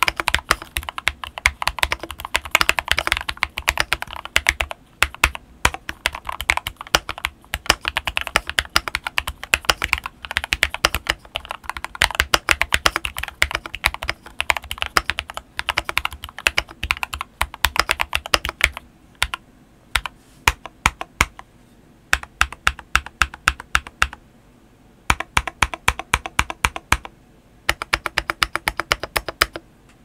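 Typing on a modded Keychron K6 mechanical keyboard with stock Feker Matcha switches and Cherry-profile PBT doubleshot keycaps. Quick runs of keystrokes, with a few short pauses in the second half.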